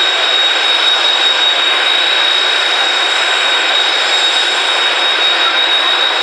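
Kawasaki T-4 jet trainers' turbofan engines running steadily on the ground. It is a loud, even rush with a constant high whine.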